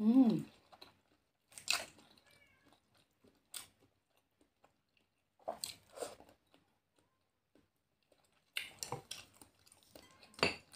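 A cat meows once, briefly, right at the start, its pitch falling. Then come scattered short chewing and crunching sounds of someone eating balut, with a sharp click near the end.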